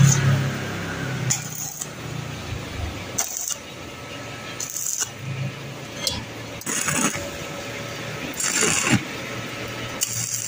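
Stick (arc) welding rod crackling and sputtering as short tack welds are laid on thin-walled square hollow steel tube, with a low buzz at the start. The welder is set to a low current because the wall is thin.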